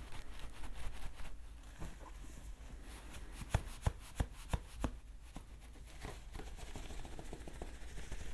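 ASMR trigger sounds close to the microphone: scattered light clicks and rustly scratching, with a run of five sharp taps, about three a second, three and a half seconds in.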